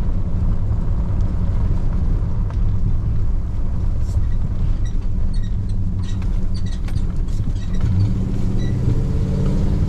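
Truck driving on a dirt road, heard from inside the cab: a steady low rumble of engine and tyres, with small clicks and rattles in the middle.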